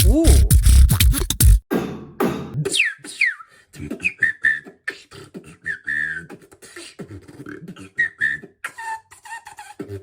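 Beatboxing. Heavy vocal bass fills the first couple of seconds, then gives way to a run of quieter mouth clicks and short falling, whistle-like glides.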